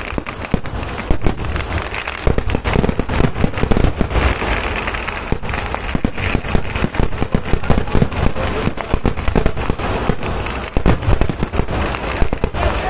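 Kerala temple-festival vedikkettu: a dense, unbroken barrage of firecrackers going off, many bangs a second with deep low thuds under the crackle.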